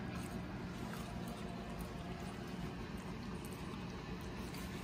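Kittens eating kibble from a bowl: faint, scattered chewing clicks over a steady low background rumble.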